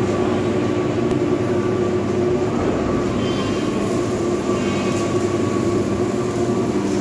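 Steady hum of heavy electric machinery with several held tones, and a faint higher whine rising in about three and five seconds in.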